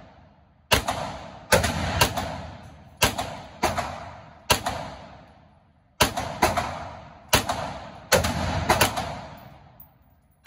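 Gunshots echoing in an indoor shooting range: about fifteen shots at irregular spacing, some in quick runs of two or three. Each shot is a sharp crack followed by a long ringing echo that fades over a second or so.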